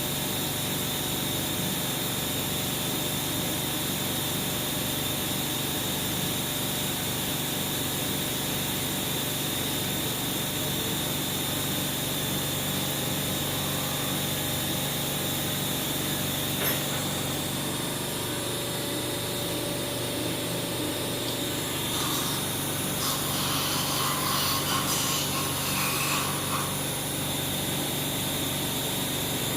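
Powered surgical equipment in an operating theatre running steadily with a high whine, as a cutting instrument is used to remove a nasal polyp. A sharp click comes a little past halfway, and a rougher hiss rises for a few seconds near three-quarters through.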